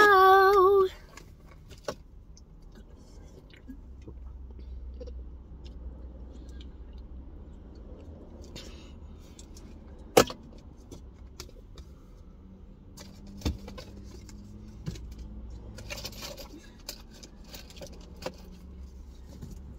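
A child's singing cuts off about a second in. Then small objects are handled and rummaged through, with light metallic jingles and scattered clicks, and one sharp click about ten seconds in.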